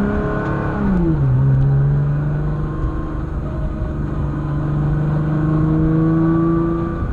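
2013 Nissan GT-R's twin-turbo V6 pulling through an upshift from 1st to 2nd about a second in, the revs dropping sharply, then holding fairly steady in 2nd. The built dual-clutch transmission is the suspected source of a fluttering noise in 2nd and a grinding from the rear on deceleration.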